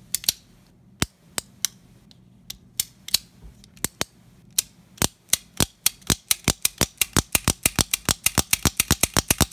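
Smith & Wesson pre-Model 10 .38 Special revolver's action being cycled by hand, the hammer cocking and the cylinder clicking round: sharp metallic clicks. They are a few and spaced apart at first, then come faster, about four or five a second, in the second half.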